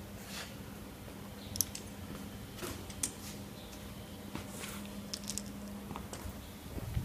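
Low steady electrical hum that fades near the end, with scattered light clicks and rustles of yarn and handheld-phone handling.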